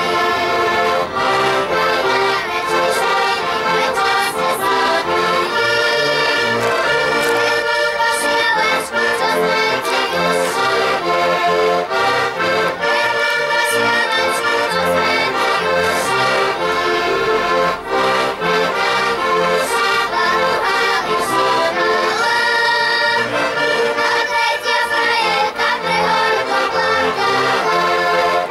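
An ensemble of accordions playing a traditional folk tune together, the melody carried over a steady alternating bass.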